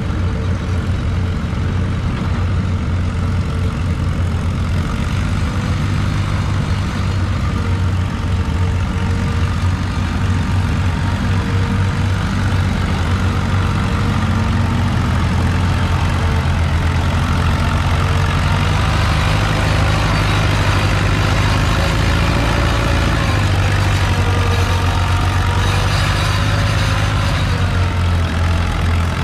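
Allis-Chalmers WD tractor's engine running hard under load while pulling the weight-transfer sled, its pitch wavering and shifting partway through.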